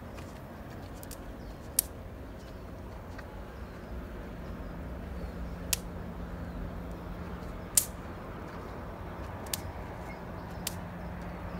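Campfire popping sharply now and then, about five pops, the loudest a little past halfway, over a steady low outdoor rumble. A steady low hum comes in about halfway through.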